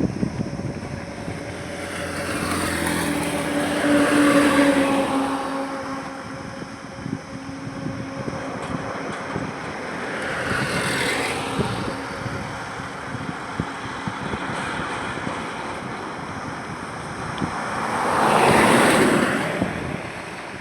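Road vehicles passing one at a time on a highway over a steady background of traffic noise. There are three passes, about 4, 11 and 19 seconds in. The first carries a steady engine drone, and the last is the loudest.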